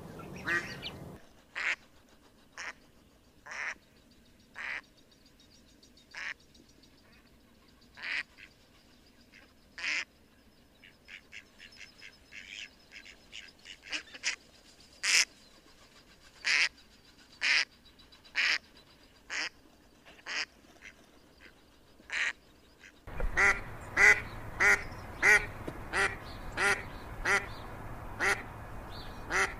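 Ducks quacking: single quacks spaced irregularly, about a second apart. About three-quarters of the way through comes a fast, steady run of loud quacks, about two a second.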